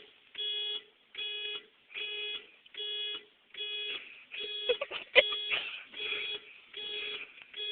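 Car alarm sounding, a single pitched beep repeating in an even pulse a little faster than once a second. A few sharp knocks come between the beeps about halfway through.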